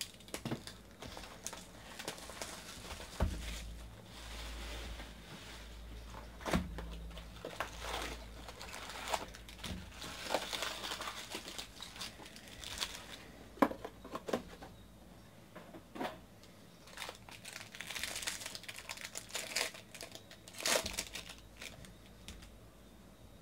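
Cellophane wrapper coming off a 2019 Bowman baseball card box, then foil card packs crinkling as they are lifted out and one is ripped open. Irregular rustling with scattered sharp clicks and knocks of cardboard.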